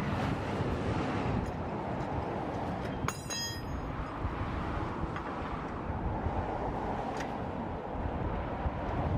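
Wind buffeting the microphone outdoors, with one short ringing metallic clink about three seconds in.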